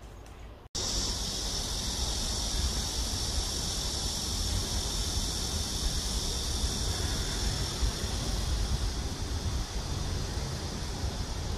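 Steady outdoor noise that cuts in abruptly under a second in: a low rumble of wind on the microphone under a constant high-pitched hiss.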